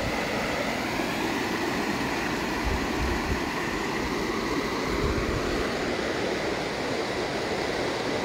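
Floodwater rushing over a flooded park field in a steady roar of churning rapids, with a few low buffets of wind on the microphone.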